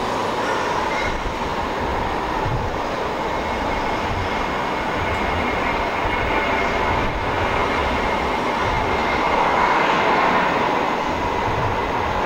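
Airbus A320 jet engines at takeoff thrust, a steady loud rush as the airliner rolls down the runway and lifts off.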